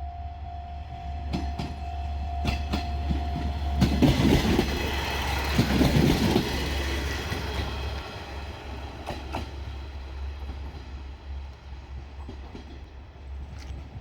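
Diesel railcar running past, its wheels clacking in pairs over rail joints under a steady low engine drone, loudest about four to seven seconds in, then fading. A steady high tone cuts off about four seconds in.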